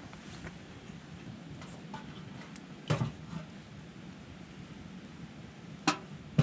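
Two sharp knocks about three seconds apart over a low, steady background noise; the second comes as firewood is pushed into the open door of a small wood-burning stove.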